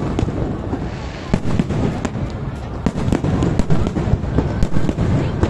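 Aerial fireworks shells bursting in quick, irregular succession: many sharp cracks over a continuous low rumble of explosions.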